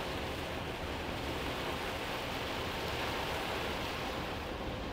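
Heavy downpour on a moving Hino Profia heavy truck: a steady hiss of rain and wet-road spray over the low drone of the truck running.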